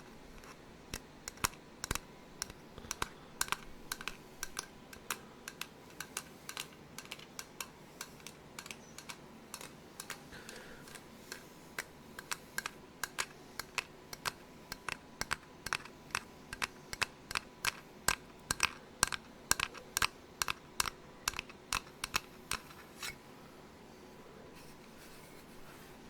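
A long run of sharp, irregular clicks or taps, a few a second, stopping about three seconds before the end.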